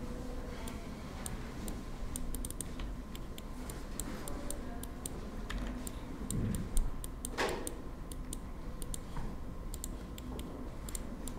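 Irregular clicks of a computer mouse and keyboard, several a second, over a low steady hum, with one louder thump about seven seconds in.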